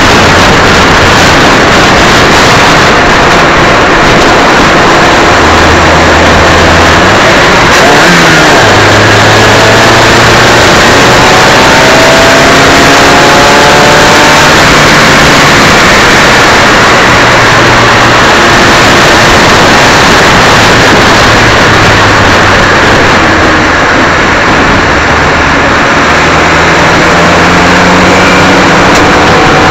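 Onboard sound of a Suzuki Swift cup race car at speed: a dense, overloaded rush of wind and road noise with the engine note underneath, rising several times as it pulls through the gears.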